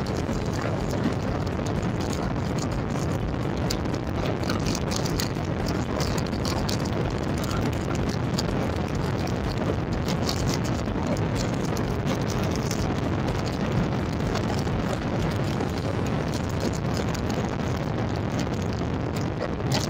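Yamaha RX100's two-stroke single-cylinder engine running steadily while the bike cruises at about 80 km/h, mixed with wind noise on the microphone.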